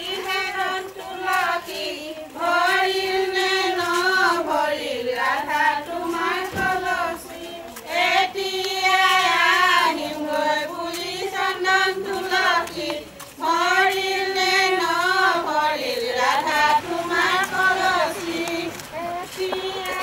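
Women and girls singing an Assamese wedding song together as they walk, in long held phrases with short breaks between them and a child's voice prominent.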